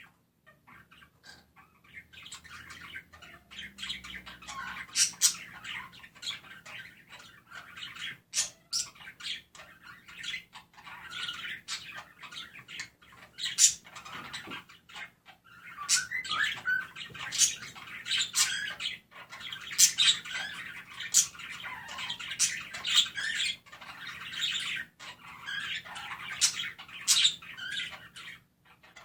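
Budgerigars chirping and warbling very loud, a dense nonstop chatter of rapid chirps and sharp high squawks. It is softer for the first couple of seconds, then builds into continuous chatter.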